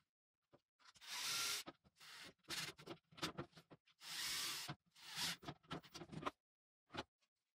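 Cordless drill-driver driving screws through a small metal bracket into plywood. The motor runs in two short spurts, about a second in and about four seconds in, with clicks and knocks from handling between them.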